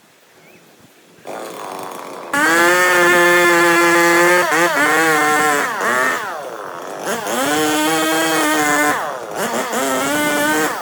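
Two-stroke chainsaw running: it comes in lower about a second in, is throttled up to high revs about two seconds in, and eases off and picks back up twice before stopping sharply at the end.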